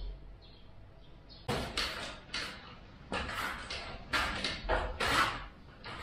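A hand trigger sprayer squirting disinfectant in a quick run of about ten short hissing bursts, starting about a second and a half in.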